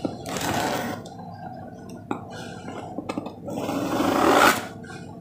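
Utility-knife blade scraping and slicing through packing tape on a cardboard box, with a couple of light clicks and a longer, louder scrape about four seconds in.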